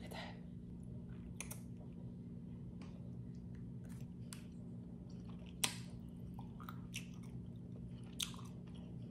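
Quiet chewing of a soft pineapple-and-tamarind candy stick, with a few short mouth clicks and smacks, the sharpest about halfway through and near the end, over a faint steady hum.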